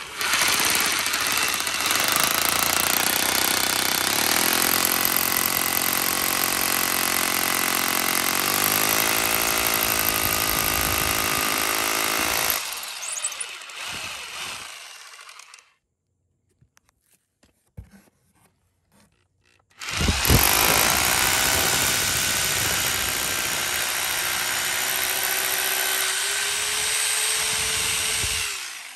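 Hammer drill with a masonry bit boring anchor holes into freshly poured concrete, in two long runs: the first lasts about twelve seconds and winds down, then after a pause of a few seconds a second run lasts about eight seconds and stops near the end.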